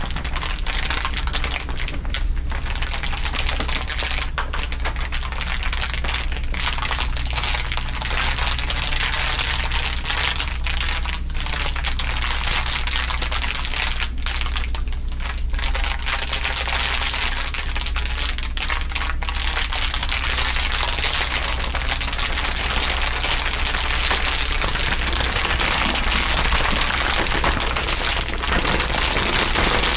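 Dense, continuous crinkling from several layered crinkle recordings, a rapid crackle of many tiny clicks, with a sweeping audio effect running through it and a steady low hum underneath.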